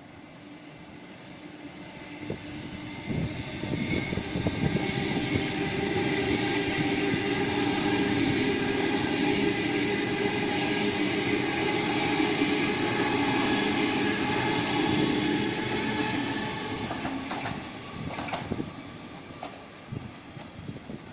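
A Waratah double-deck electric train passes through the station without stopping. It builds as it approaches, runs loud for about ten seconds with a steady whine over wheel and rail noise, and fades as it pulls away. The wheels clatter over rail joints as it comes in and again as the last cars go by.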